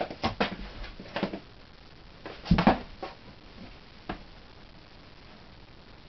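A cat scuffling and bumping about in a cardboard box: a scattering of short taps and scrapes, the loudest bump about two and a half seconds in.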